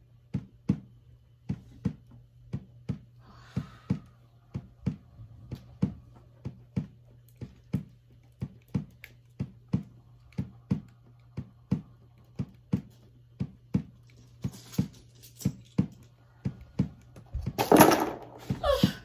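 Slow heartbeat sound effect: a steady double thump about once a second over a low hum. A loud crash comes near the end.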